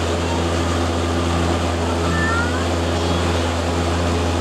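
Boat engine running at a steady, unchanging drone under a hiss of wind and water. A faint high gliding call rises and falls about halfway through.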